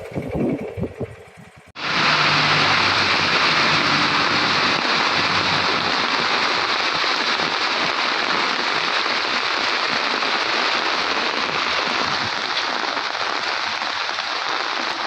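Steady rushing noise of water, starting abruptly about two seconds in and holding an even level.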